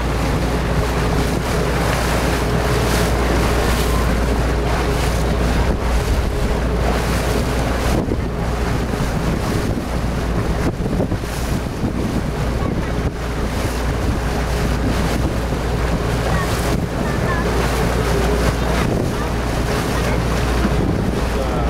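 Wind buffeting the microphone over the wash of choppy water, with a constant low rumble.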